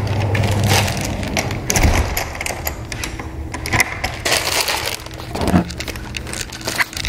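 A run of irregular crackles, clicks and knocks from handling objects, with a low hum in about the first second.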